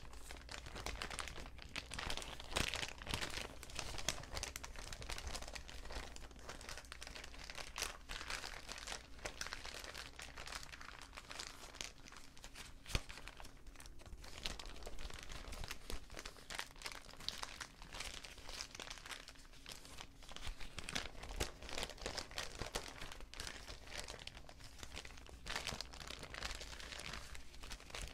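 Paper bags being crinkled and crumpled: a continuous dense crackling made of many small sharp crackles, with one sharper crack about halfway through.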